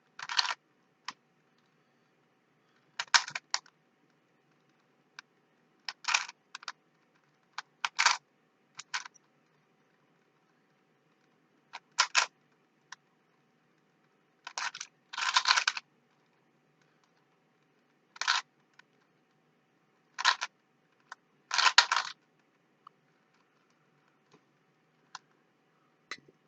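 Rubik's cube layers being twisted by hand: short bursts of plastic clicking and clacking, each a few quick turns, with pauses of a second or more between bursts.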